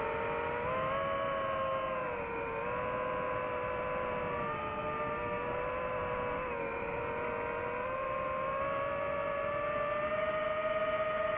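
DJI FPV drone's motors and propellers whining in flight, the pitch sliding up and down with throttle and rising near the end.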